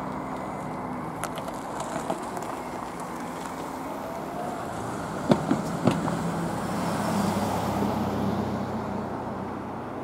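A motor vehicle going by, its low engine hum swelling about seven seconds in and then fading, with two sharp clicks a little after five seconds in.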